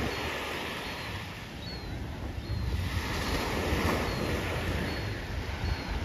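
Small waves washing onto a sandy shore, with wind buffeting the microphone in a low rumble. The wash swells louder about halfway through.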